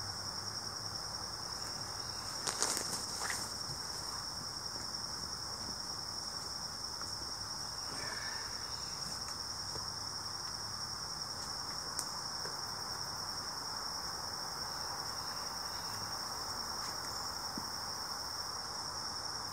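Insects calling in a steady, unbroken high-pitched chorus, with a brief knock about two and a half seconds in.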